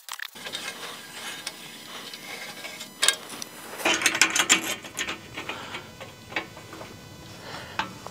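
Hex key tightening a clamp bolt on an aluminium solar-rack rail: irregular metallic clicks and scraping. The clicks are loudest in a cluster about four seconds in.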